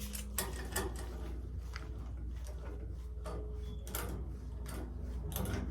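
Short metallic clicks and scrapes of brass fittings being threaded and tightened with a wrench on a steam boiler's pressuretrol pigtail, repeated irregularly over a steady low hum.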